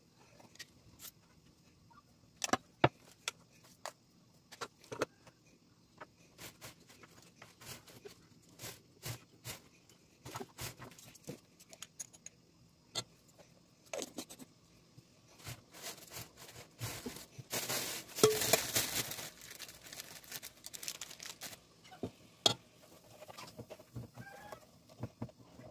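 Scattered light clicks and clinks of kitchen utensils against an aluminium cooking pot, with a rustling, scraping noise lasting about two seconds a little past the middle.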